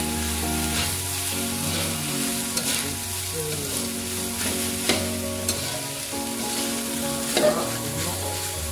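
Metal spatula tossing and scraping fried rice in a steel wok, the rice sizzling steadily, with a few sharp clinks of the spatula against the wok, the loudest about seven and a half seconds in.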